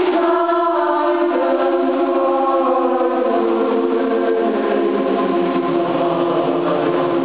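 School choir singing long held chords in several parts. Partway through, the lower voices step down, so that the chord grows fuller and deeper toward the end.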